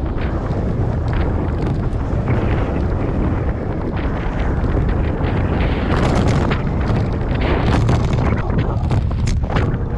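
Wind buffeting the microphone of a handlebar-mounted camera on a moving bicycle: a steady low rumble broken by frequent short knocks and rattles as the bike rolls along the cycle path.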